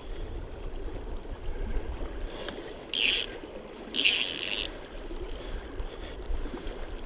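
River current rushing over a shallow rocky bank, steady throughout. About three and four seconds in come two short hissing swishes from the fly line as it is handled and side-cast.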